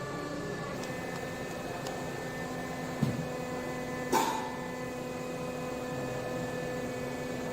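High-frequency welding machine and its hydraulic station running with a steady electrical hum, broken by two short knocks about three and four seconds in.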